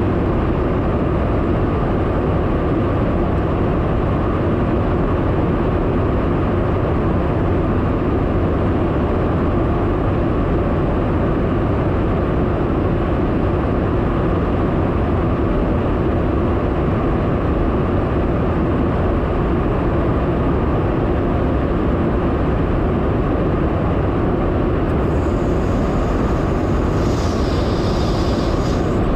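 Steady in-flight cabin noise inside a KC-135 Stratotanker's boom operator pod: a constant rumble of engines and rushing air. Faint high-pitched tones come in near the end.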